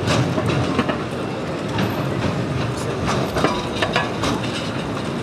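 Alstom TFS tram running on the rails: a steady rumble with sharp, irregular clacks from the wheels.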